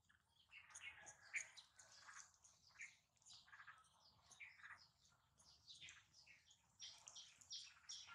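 Faint, scattered chirping of small birds, many short high chirps with brief gaps.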